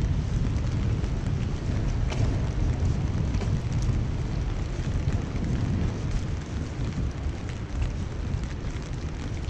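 Rainy city street ambience: a steady low rumble, with rain pattering on an umbrella overhead and a few faint ticks of drops.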